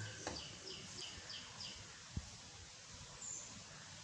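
A bird chirping outdoors in the background: a quick run of about six short, high chirps in the first two seconds and one more high note later, over faint room noise, with a single soft thump about two seconds in.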